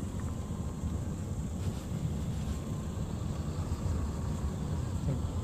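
Steady low rumble of road traffic heard from inside a car's cabin, with no single event standing out.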